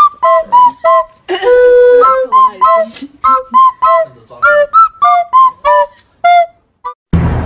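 Background music: a bouncy, flute-like melody of short quick notes, about three a second, on a few repeating pitches. Near the end it cuts to louder, fuller music with a low drum.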